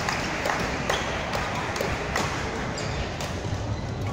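Sharp, irregular taps of rackets striking shuttlecocks, mixed with players' shoes on the court mats, from several badminton courts in play at once in a large hall.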